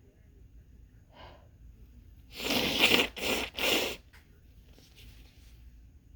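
A congested person's nose: a faint sniff about a second in, then three quick, forceful, noisy blasts of air through the nose over about a second and a half, like blowing into a tissue or stifling a sneeze.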